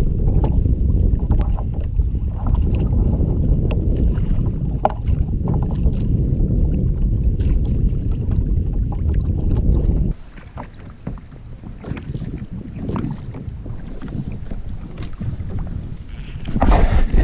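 Wind buffeting the microphone on a kayak, a heavy low rumble that cuts off abruptly about ten seconds in. After that come quieter small knocks and clicks, and a loud rustling burst near the end.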